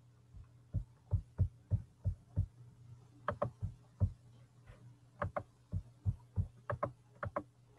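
A series of about twenty soft, irregularly spaced knocks and taps over a steady low hum.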